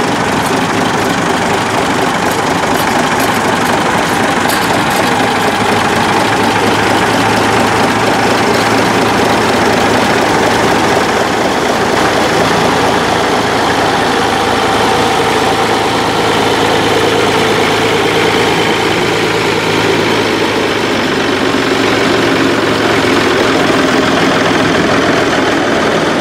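Vintage tractor engines running steadily at low revs as a line of tractors drives slowly past.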